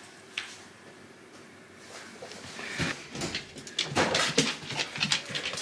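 A golden retriever's claws clicking and scrabbling on a hardwood floor as the dog hurries away, mixed with scuffs and knocks of movement. It is quiet at first, and the clicks begin about two and a half seconds in and grow busier.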